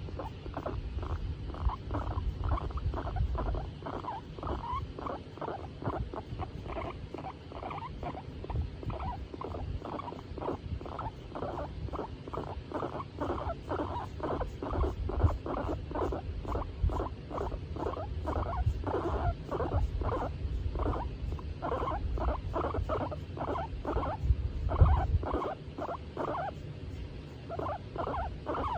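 Skinny guinea pig giving a long, even run of short calls, about two to three a second, over a low rumble, while being stroked: the contented sound of a guinea pig enjoying being petted.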